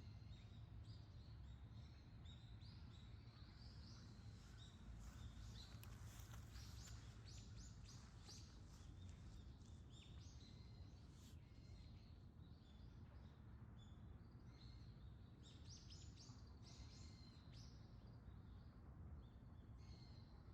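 Faint morning birdsong: many small birds chirping and calling in quick short notes, busiest about a third of the way in and again near the end, over a steady low rumble.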